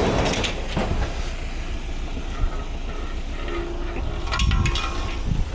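Scrap metal being handled, with metallic knocks and clanks near the start and again about four and a half seconds in, over a steady low rumble.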